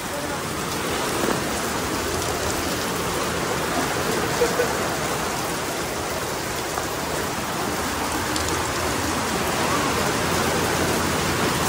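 Steady rain falling and splashing on surfaces, with a couple of sharp taps about four and a half seconds in.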